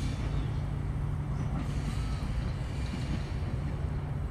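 D1-class Siemens Combino low-floor tram running slowly on the track, a steady low hum.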